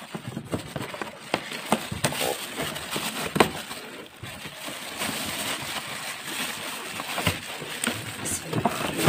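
Clear plastic wrapping crinkling and rustling as it is pulled off a boxed stand mixer, a continuous run of small crackles.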